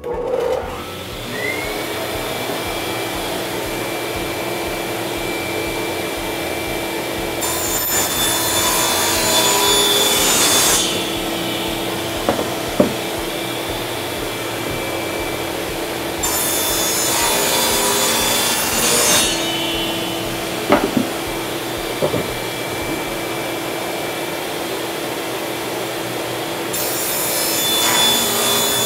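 Table saw starting up, with a shop vac running alongside it on an auto switch. The saw rips three wooden door panels, each cut lasting about three seconds, with the blade's harsh cutting noise rising over the steady motor and vacuum. A few sharp knocks come between the cuts.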